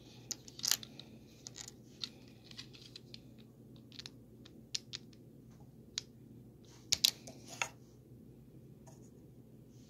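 Plastic Lego bricks being handled and pressed together: scattered sharp clicks and small rattles, the loudest cluster about seven seconds in, over a faint low hum.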